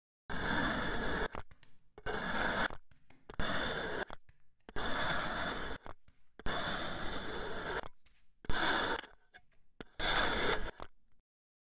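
A knife blade slicing through sand packed in a bowl: seven gritty scraping cuts, each about a second long, with short pauses between them.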